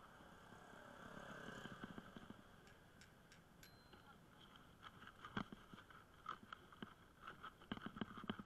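Bicycle rattling over a rough lane: irregular faint clicks and knocks from the bike and its handlebar-mounted camera. A passing motorbike swells and fades about a second in.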